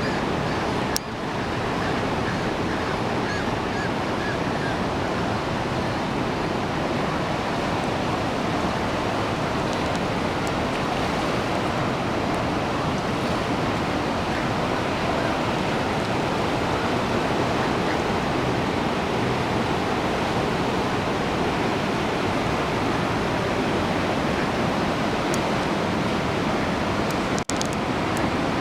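Steady rushing of water pouring over a river waterfall, an unbroken hiss and roar with no let-up.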